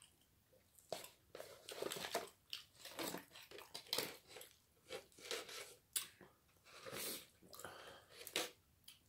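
Close-up eating sounds: chewing and crunching of crispy fried chicken, with irregular crackles as the chicken is pulled apart. A small sachet crinkles near the end.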